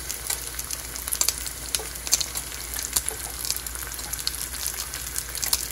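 Bacon strips frying in a pan: a steady sizzle with frequent sharp little pops and crackles.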